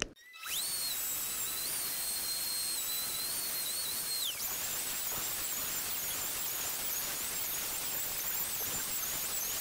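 Router on a slab-flattening sled cutting across a live-edge walnut slab: a steady high whine over the hiss of the bit cutting. About four seconds in, one whine drops in pitch, and after that the remaining whine wavers up and down.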